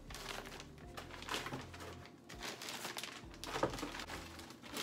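Rustling and light knocks of packets of candle wicks being handled and packed into a storage box, with faint background music.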